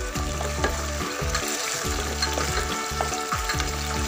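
Onions and green chillies in a thick tomato and soy sauce sizzling steadily in a kadai.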